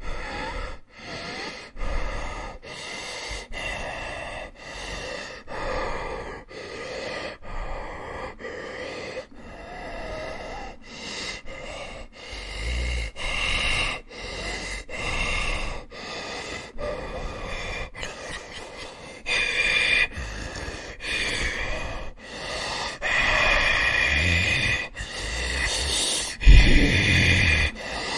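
Zombie breathing sound effect: a voice taking short, harsh gasping breaths one after another, about one a second. A few come deeper and louder, the loudest near the end.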